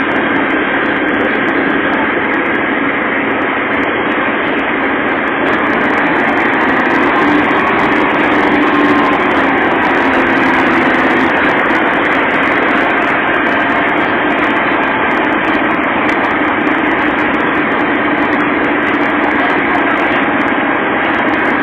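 Heavy machinery's diesel engines running steadily, a continuous mechanical drone with a few faint held tones and no change in level.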